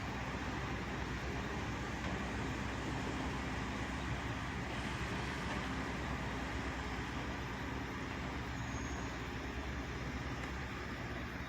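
Backhoe's diesel engine running steadily, with a low steady hum and no sharp knocks.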